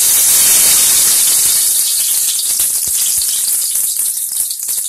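Mustard seeds dropped into hot oil with fenugreek seeds in a steel pot for tempering: a loud sizzle at once that fades over a couple of seconds into scattered crackling as the seeds start to splutter.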